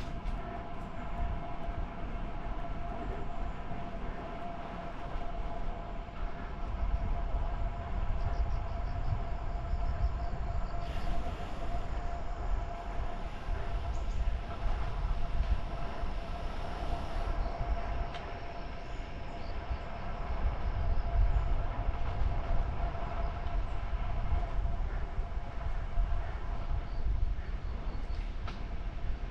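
Steady low rumble of wind buffeting a moving microphone, swelling and easing, over a constant whine, as from a camera on a road bicycle being ridden. For a few seconds around the middle a higher hiss is added.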